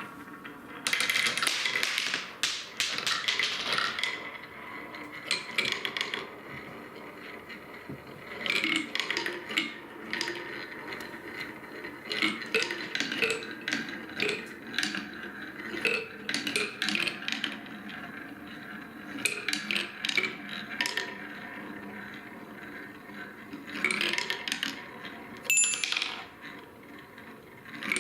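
Glass marbles rolling down a long wooden slope course: a steady rolling rumble broken by repeated flurries of clicking and clacking as the marbles knock against each other and the wooden track, with a few bright glassy clinks near the end.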